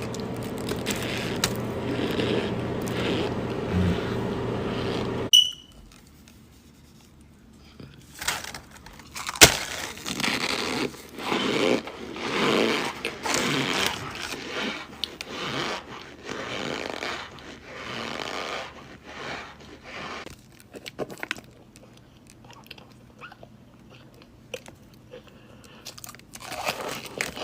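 A steady hum for about five seconds that cuts off suddenly. Then, after a short quiet, cornstarch blocks crunching loudly as they are bitten and chewed, in dense runs of crisp crunches that thin out near the end.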